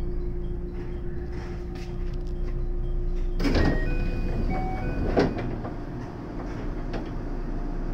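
521 series electric train standing at a station: a steady electrical hum cuts off about three and a half seconds in, then come two hisses of air and a few short electronic chime tones as the passenger sliding doors work.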